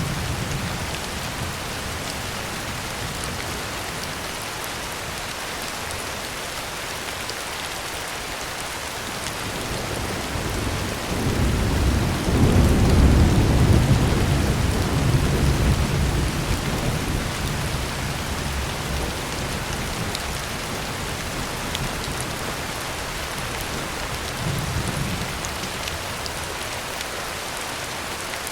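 Heavy rain pattering steadily on a tin roof, with a long roll of thunder that swells about halfway through and fades away, and a fainter rumble near the end.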